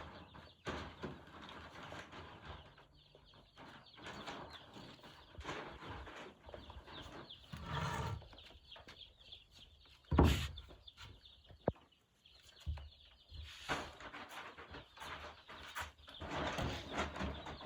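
Day-old broiler chicks cheeping over rustling and small knocks, with one loud thump about ten seconds in.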